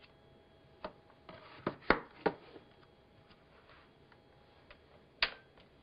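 Handling sounds of an X-ray film cassette being reloaded: a click, then a quick run of sharp clicks and knocks with some rubbing about two seconds in, and one more knock near the end.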